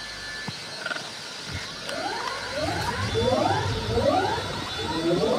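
Experimental electronic music: a noisy, hissing texture with faint steady high tones. From about two seconds in, short upward-sliding tones repeat every half second or so over low thuds.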